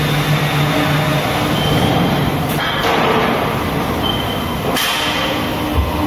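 Steel pipe mill machinery running steadily, a loud mechanical hum with a few sharp knocks about two and a half, three and nearly five seconds in.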